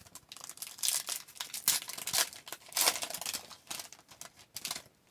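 A trading card pack's foil wrapper crinkling as it is torn open and handled, in a run of irregular rustles and short sharp crackles.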